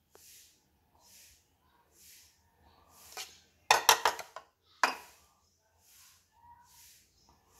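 A metal spoon clinking against the batter bowl as batter is scooped: a quick cluster of sharp clinks a little past the middle, then one more about a second later.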